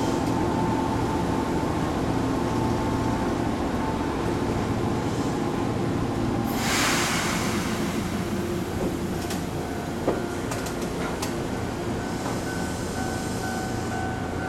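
Fujikyu 2000-series (ex-JR 165 series) electric train rolling slowly through an automatic train wash: a steady hum with several held tones, mixed with the hiss of the washer's water spray. A louder burst of hiss comes about seven seconds in, followed by a few sharp clicks, and two new steady tones start up near the end.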